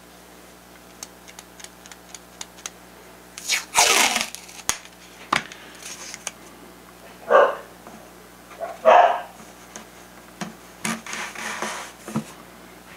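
Strips of tape pulled off a roll with short rasping rips, several times, and pressed onto a foam wing to hold a freshly glued wingtip block, over a steady low hum.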